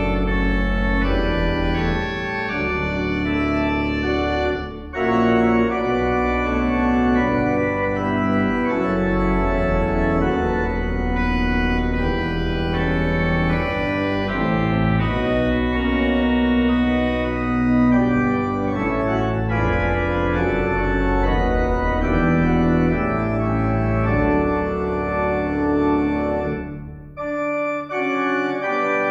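Organ postlude: sustained chords over deep bass pedal notes, changing chord every second or two, with short breaks between phrases about five seconds in and near the end.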